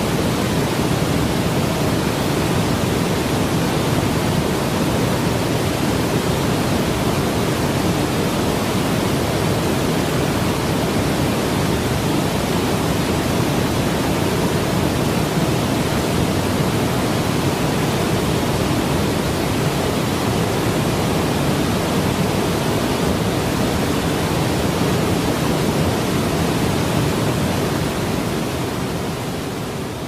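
Waterfall pouring heavily into a rocky plunge pool: a loud, steady, deep rush of falling water that begins to fade out near the end.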